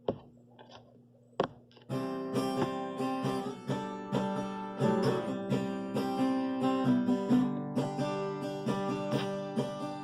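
Acoustic guitar strummed, playing the instrumental introduction to a sung Christmas hymn. It starts about two seconds in, after a single sharp click.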